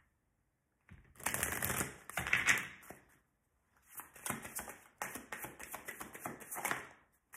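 A deck of tarot cards shuffled hand over hand, the cards rapidly clicking and rustling against each other. It starts about a second in and comes in two bouts with a short pause between them.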